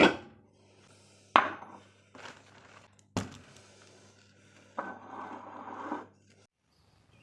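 Objects being handled: three sharp knocks about a second and a half apart, then about a second of scraping or rubbing.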